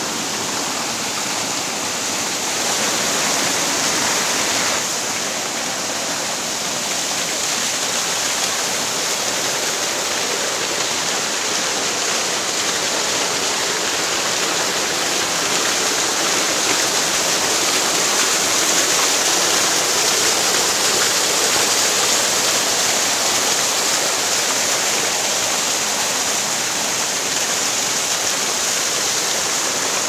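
Forest stream rushing over a small rocky cascade: a steady rush of water that grows a little louder about halfway through.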